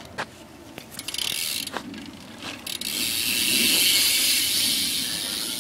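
BMX rear hub's freewheel ratchet: a few separate clicks as the wheel is turned, then from about three seconds a continuous buzz of the pawls as the wheel spins freely, slowly easing off.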